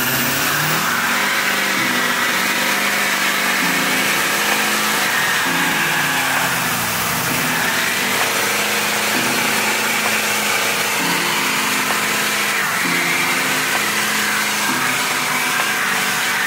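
Lifted Chevrolet Silverado pickup doing a burnout: the engine is held at high revs while the rear tyres spin on the pavement, a loud steady rush of engine and tyre noise.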